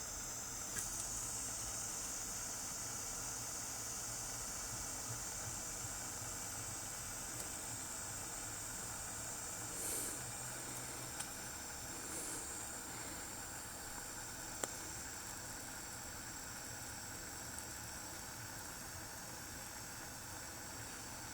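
Faint steady hiss of soldering heat being run along a vertical copper seam to smooth the solder, with a few light ticks.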